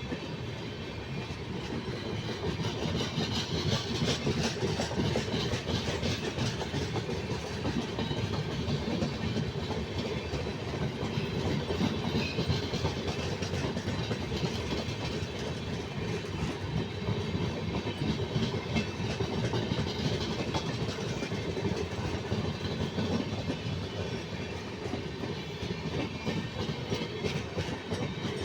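Indian Railways train running along the track: steady running noise with continual fine clatter of the wheels on the rails.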